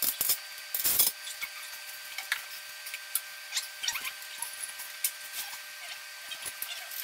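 Scattered light clicks and taps of tools and metal parts being handled during equipment assembly, with a short scrape about a second in.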